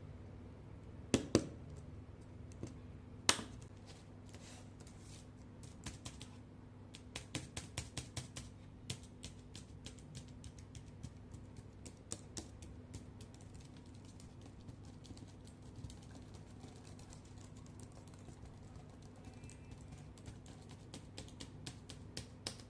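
Keys clicking on a laptop keyboard: two sharper clicks near the start, then short runs of quick typing and scattered keystrokes, over a faint steady hum.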